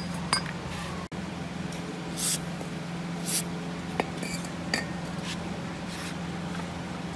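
Workshop handling of a small four-stroke generator engine: a few light metallic clicks of a hand tool against the engine, and two short hissing bursts, over a steady low hum.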